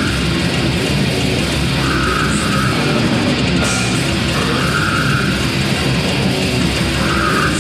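Death metal band playing live at full volume: distorted electric guitars, bass and drum kit in a dense, unbroken wall of sound, with a higher note coming back about every two and a half seconds.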